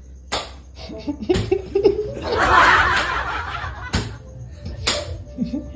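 Laughing, loudest about halfway through, over background music with a regular beat of about one stroke a second.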